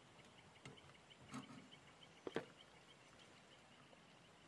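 Quiet night ambience with faint, rapidly repeating insect chirps. A few light knocks of handling sound over it, the sharpest a little over two seconds in.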